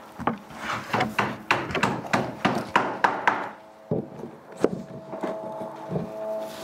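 Rapid series of wooden knocks and clatter, about three to four a second for some three seconds, then a few scattered knocks as steady background music comes in.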